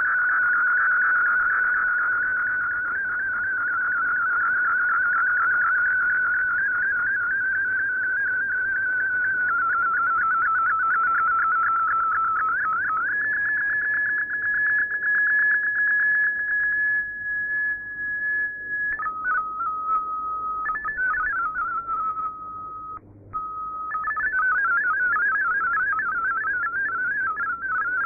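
MFSK digital-mode data tones from a shortwave broadcast received through a radio: a high warbling tone that shifts in small steps. About halfway through it turns into a steady held tone, then steps lower and breaks up in short gaps. The warbling data tones return a few seconds before the end.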